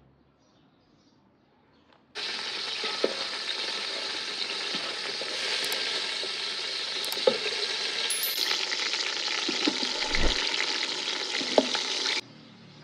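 Food frying and sizzling steadily, with a few sharp clicks through it. The sizzle starts abruptly about two seconds in and cuts off abruptly near the end.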